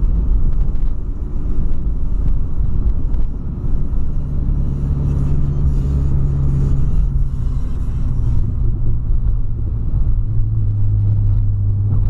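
Cabin noise of a 2008 Volkswagen Polo sedan driving on a wet road: a steady engine and tyre rumble. The engine's hum drops to a lower steady tone about eight seconds in.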